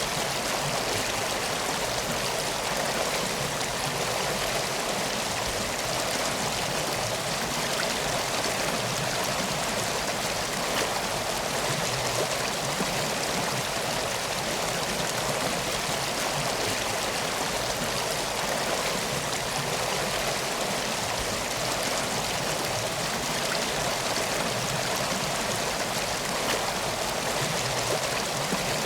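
River water flowing steadily, an even rushing without pause.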